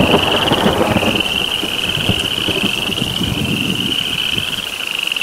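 Spring peepers calling in a chorus: their high-pitched peeps run together into one continuous trilling band. A low rumble sits underneath and fades out about four seconds in.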